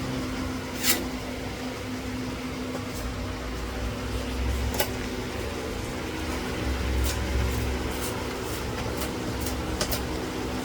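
A steady mechanical hum, with a few light clicks and knocks scattered through it and some low rumbling swells.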